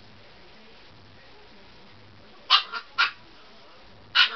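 Husky puppy giving short yips: three in quick succession about two and a half seconds in, then one more near the end.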